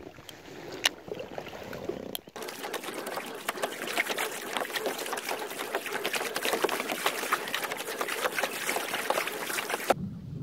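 Water trickling and splashing against the hull of a pedal kayak out on the water: a dense, fizzing patter of fine ticks that begins after a couple of quieter seconds and stops abruptly near the end.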